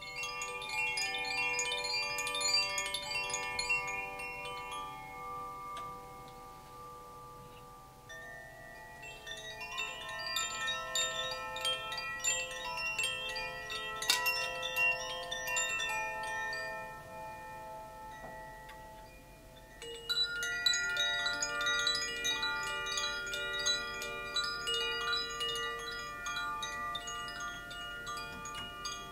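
A set of Zaphir chimes set swinging by hand, ringing as clusters of many bright sustained notes that fade slowly. The chiming comes in three waves: at the start, again about eight seconds in, and most suddenly about twenty seconds in.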